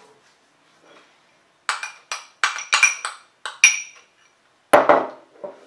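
A metal spoon scraping and clinking against a small glass bowl while scooping out coconut oil: a quick run of about seven sharp, ringing clinks, then a heavier knock near the end.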